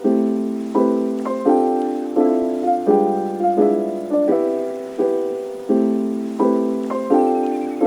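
Background music: soft piano chords struck in a steady rhythm, each one ringing and fading before the next.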